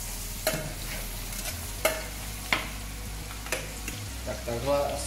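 Julienned carrot, celeriac and parsley root frying in fat in a stainless-steel braising pan, sizzling steadily while a metal spatula stirs them, with about four sharp knocks of the spatula against the steel pan.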